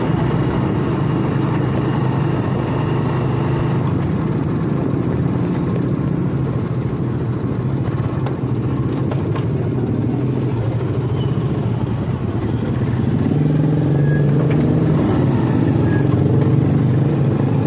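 Motorcycle engine running steadily while riding, a low drone that grows a little louder from about two-thirds of the way in.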